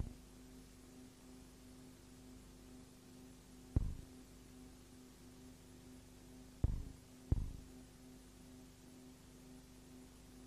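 A steady low hum with three dull thumps: one about four seconds in and two close together near seven seconds.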